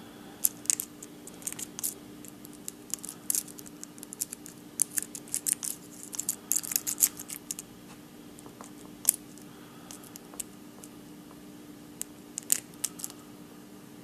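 Lock pick and tension bar working the pin stack of a padlock's Schlage SC4 six-pin core during single-pin picking: scattered light metallic clicks and scrapes, busiest in the middle of the stretch and thinning out near the end, over a steady low hum.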